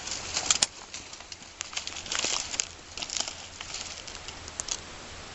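Irregular rustling and crackling with sharp scattered clicks: a dead hog being handled and turned over on the ground to get at the broadhead beneath it.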